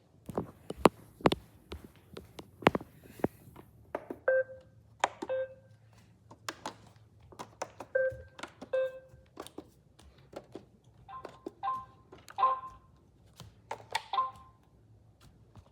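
iRobot robot vacuum: a string of sharp clicks and knocks, with short electronic beeps among them from about four seconds in.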